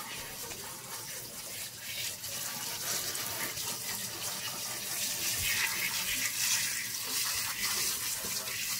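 Water running steadily from a handheld sink sprayer onto a wet Shih tzu puppy's coat and splashing into the sink basin.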